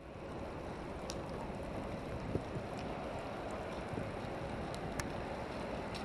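Steady outdoor ambience: an even wind-like hiss over a low rumble, with a few faint clicks about one, two and five seconds in.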